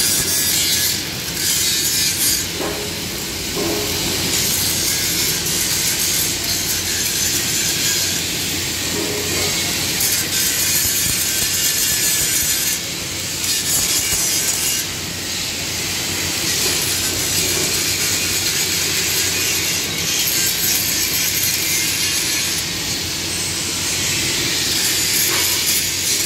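Handheld angle grinder grinding down weld joints on square steel tubing: a continuous high, hissing grind of the disc on steel that eases off briefly a few times as the pressure on the disc changes.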